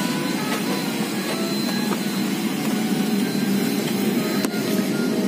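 Steady rushing hum inside a Boeing 777-300ER cabin on the ground: the airflow of the cabin air-conditioning. A few faint short tones sound over it.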